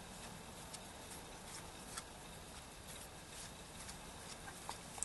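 Faint, scattered small clicks of a precision screwdriver turning a tiny screw in a folding knife's steel handle liner, with fingers handling the parts.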